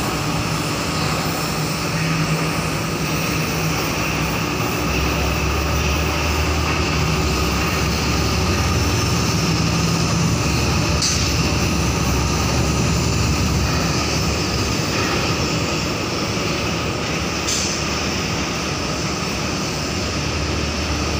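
Steady low drone of a ship's engines and thrusters as the vessel manoeuvres out of a dry dock, with a deeper hum swelling from about five to fifteen seconds in.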